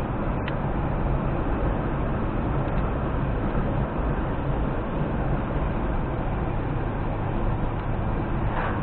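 Steady road and engine noise of a car cruising on a paved highway, heard from inside the cabin, with a small click about half a second in.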